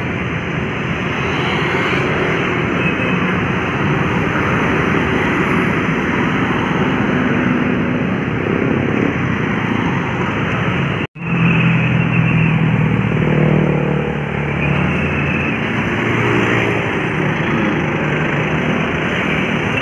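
Steady roadside traffic noise: the engines and tyres of buses, cars and motorcycles passing. The sound drops out abruptly for an instant about eleven seconds in.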